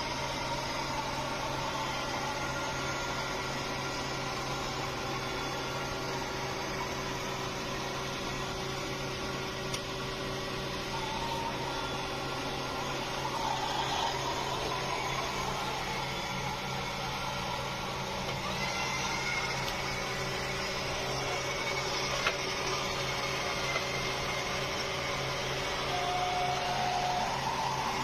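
Robot vacuum cleaner running: a steady motor and suction noise with a low hum, and a faint whine that drifts up and down in pitch.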